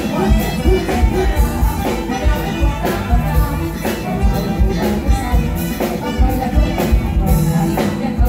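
Live band music, loud through a stage PA, with a fast steady beat and a woman singing into a microphone.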